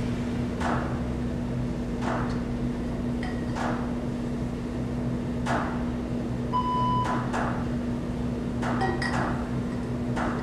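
A steady low hum with soft swishing sounds about every one and a half seconds, and a short electronic beep about six and a half seconds in.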